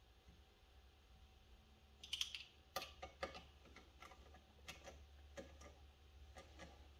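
Faint, irregular metallic clicks and ticks from a brass case trimmer being handled and finely adjusted, starting about two seconds in.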